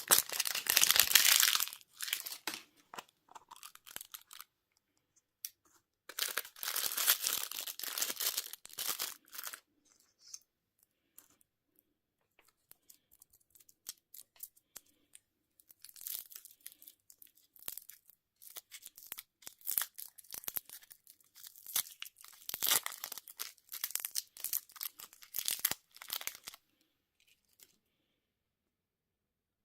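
Candy wrappers being torn open and crinkled in bursts of crackling, with short pauses between.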